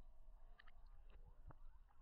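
Near silence: a faint low rumble with a few soft clicks, and one sharper tick about a second and a half in.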